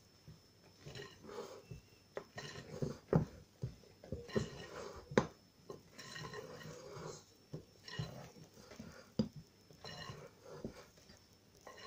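Sponge cake batter being mixed by hand in a large glass bowl: irregular soft stirring and slopping noises, with a few sharp knocks against the glass, the loudest about five seconds in.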